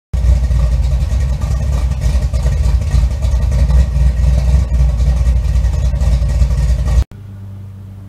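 A car engine running, loud and steady, cutting off suddenly about seven seconds in.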